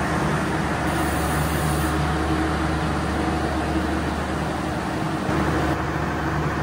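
Steady mechanical hum and rumble of an INKA battery-electric tram on the track, with a few steady low tones running through it.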